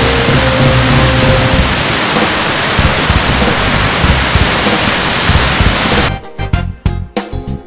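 A loud, steady rush of noise with a few faint held tones under it. About six seconds in it stops abruptly, and background music with plucked notes and a regular beat takes over.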